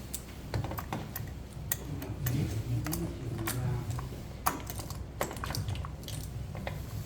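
Irregular light clicks and rattles of a STIHL chainsaw chain being handled and worked onto the guide bar and clutch sprocket, with a short quick run of clicks about halfway through.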